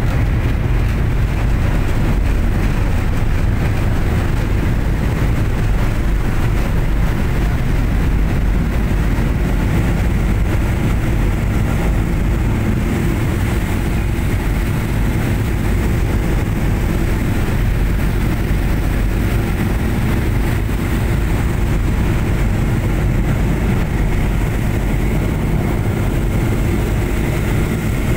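Steady low drone of a ship's engines mixed with the rush of the foaming wake churning behind the vessel.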